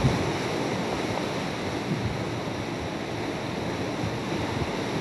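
Hurricane eyewall wind and wind-driven rain, a steady rushing noise.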